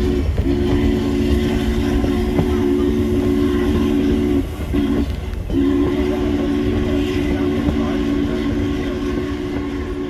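Steam locomotive's deep chime whistle, three notes sounding together, blown in the long-long-short-long pattern of a grade-crossing signal. One blast ends just at the start, then come a long blast, a short one and a final long one. Under it runs the steady low rumble of the moving train.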